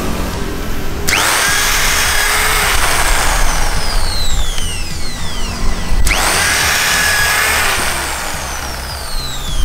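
DongCheng JIZ-FF05-10A pneumatic-feed dowel and cam-bolt boring machine running twice: its 500 W drill motor starts suddenly and spins up, boring into the board edge for three to four seconds each time.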